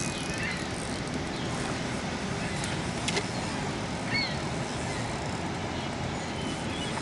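Steady rushing outdoor background noise with a few short bird chirps, and a couple of sharp clicks around the middle.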